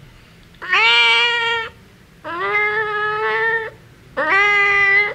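A domestic cat meowing three times, each meow about a second long with a short pause between. Each rises in pitch at the start, then holds steady.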